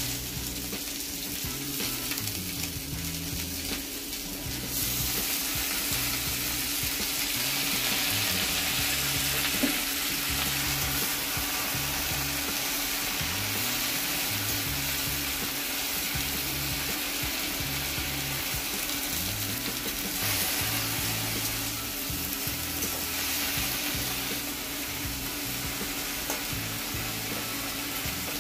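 Bottle gourd leaves, potato and eggplant frying in hot oil in a kadai, sizzling steadily while a spatula stirs them. The sizzle grows louder about five seconds in.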